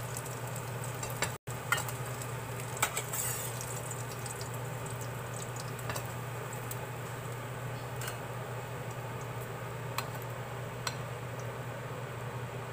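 Oil sizzling steadily in a stainless steel frying pan as shrimp fritters fry, with a few light clinks of a metal ladle against the pan.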